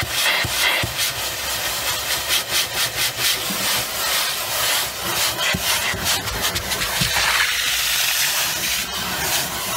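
Vacuum cleaner running, with its plastic crevice nozzle dragged in repeated strokes across car carpet, giving a steady rubbing scrape over the suction noise.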